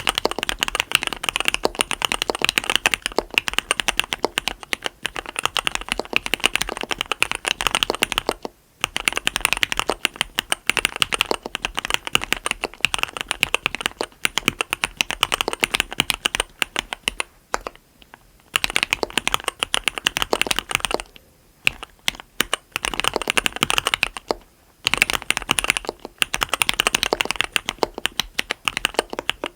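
Mechanical keyboard with Cherry MX Black linear switches on 55g progressive SPRiT springs, a SUS304 stainless steel plate and Leopold keycaps, typed on fast in long runs of keystrokes with a few short pauses.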